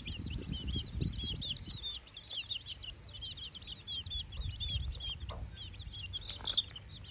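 A flock of domestic chicks peeping busily as they feed, many short high chirps overlapping in quick succession. A low rumble runs underneath in the first two seconds.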